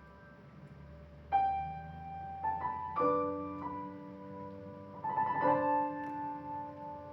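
Slow, soft piano playing: a few notes and chords struck a second or two apart, each left to ring.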